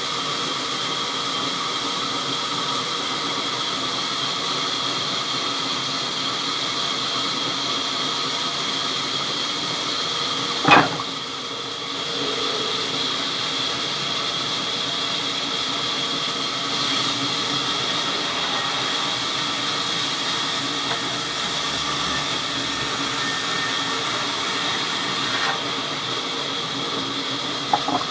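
A machine running steadily with a hiss and a few steady whining tones. A single sharp knock comes about eleven seconds in.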